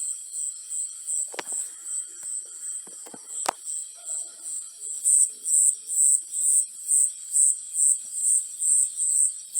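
Cricket chirping in an even rhythm, about two high chirps a second, growing louder about halfway through. Two sharp clicks stand out, one about a second and a half in and one about three and a half seconds in.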